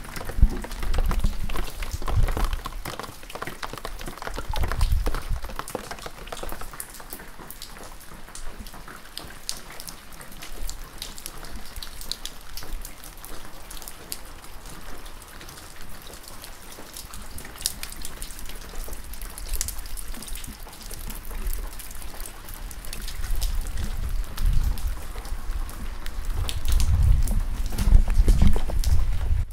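Gentle rain falling on a backyard, a steady hiss with many scattered drop ticks. Low rumbling comes in during the first few seconds and again near the end.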